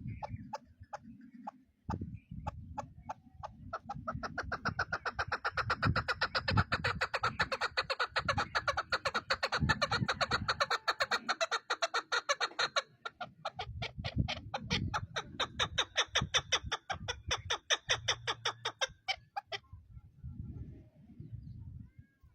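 Chukar partridge calling: a long run of rapid clucking notes, a few spaced notes at first, then fast and dense for several seconds, slowing and stopping a few seconds before the end. A low rumble runs underneath.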